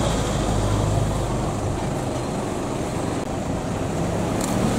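A motor vehicle's engine running steadily: a low hum over continuous road or motor noise, rising slightly near the end.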